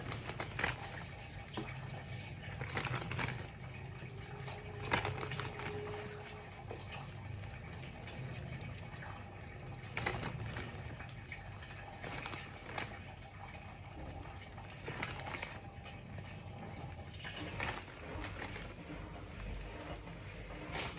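Whitebait fish shallow-frying in hot oil in a pan: a steady sizzle broken by scattered sharp crackling pops.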